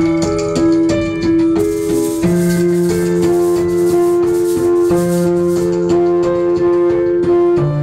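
Instrumental music with held melody notes and a shaker rattling through most of it, played loud through DJ loudspeakers driven by a Notrox NT-1200 1200-watt power amplifier under sound test.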